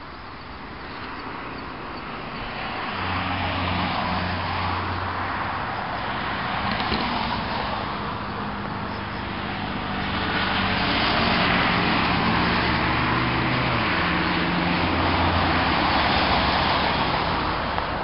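Road traffic: motor vehicles passing, a rushing tyre and engine noise that swells and fades, with a steady low engine hum, growing louder in the second half.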